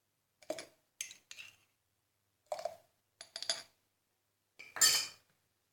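A spoon clinking and tapping against a glass jar in about five short bursts, as spoonfuls of green tea are added to the mixture; the loudest clatter comes near the end.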